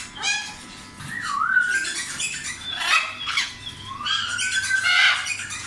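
Many caged pet birds calling at once: harsh, rasping calls and chirps overlapping, with two long gliding whistles, one about a second in and one near four seconds.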